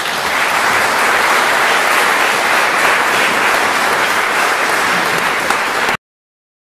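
Audience applauding steadily, then cut off suddenly near the end.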